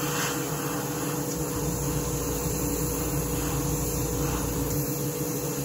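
Airbrush spraying thinned lacquer paint: a steady hiss of air, with a constant hum underneath.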